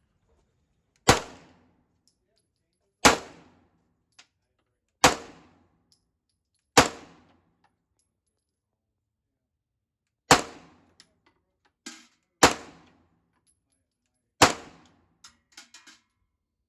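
Seven gunshots at a shooting range, each a sharp crack with a short fading tail. The first four come about two seconds apart, then a pause of about three and a half seconds, then three more about two seconds apart.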